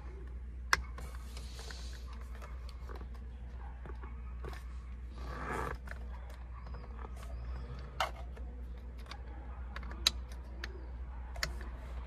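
Scattered sharp clicks and taps of a screwdriver and fingers on hard plastic as the latch of a wiring connector in a car's steering-wheel hub is pried at, four clicks louder than the rest, with a short scraping rustle about halfway through. A low steady hum runs underneath.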